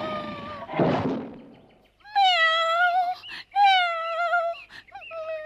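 Cat meowing repeatedly. A meow trails off at the start, a short thud comes about a second in, then two long meows and a few shorter ones near the end.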